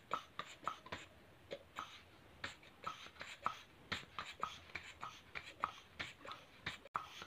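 Inflated latex modelling balloon being handled and stretched between the hands: a run of short, faint rubbery squeaks and rubs, two to four a second.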